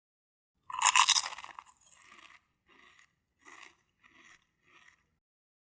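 Pancake batter being stirred in a bowl, the spoon scraping and crunching through it: one loud stretch about a second in, then five shorter, quieter strokes about two thirds of a second apart.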